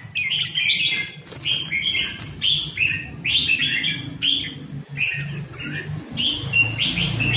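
Red-whiskered bulbuls chirping: a run of short, bright phrases repeated about every half second, over a low steady hum.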